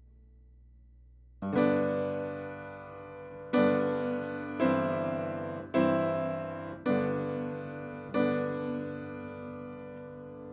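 Piano playing slow, full chords, each struck and left to ring and fade before the next; it begins about a second and a half in, after a quiet pause.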